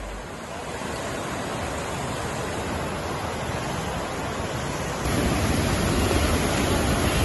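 Fast-flowing floodwater rushing across a road, a steady noise of moving water. About five seconds in it becomes louder and fuller as water gushes through a culvert.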